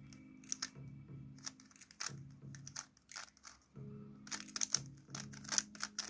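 A stickerless plastic 3x3 speedcube clacking and clicking as its layers are turned fast, in quick irregular runs that are busiest in the second half. Background music plays with a steady low tone.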